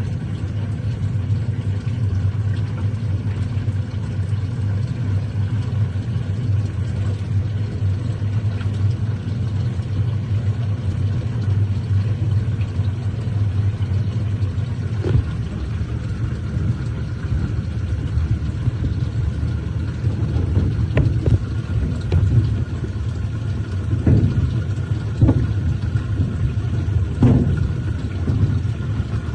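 Top-loading washing machine running its wash programme with a steady low hum. A few short knocks come in the second half.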